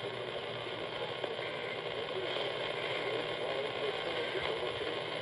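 AM radio reception: steady static hiss with faint, indistinct talk underneath, and a thin, steady high whistle.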